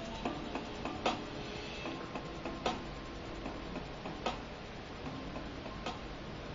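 Thin, faint hip-hop backing track with sharp clicks of the beat about every one and a half seconds and faint held notes between them.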